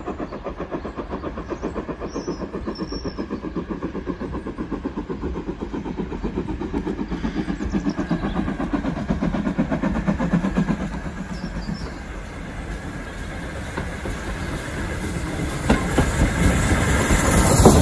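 Double-headed steam locomotives, led by 41312, an Ivatt 2-6-2 tank engine, chuffing in a steady rhythm as they work up the line. The chuffing grows louder over the last few seconds as the engines come close and pass beneath.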